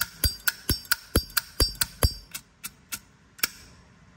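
Zippo lighter lid being flicked open and snapped shut over and over: a quick run of sharp metallic clicks with a slight ring, about four a second, which thins out to a few last clicks after about two seconds.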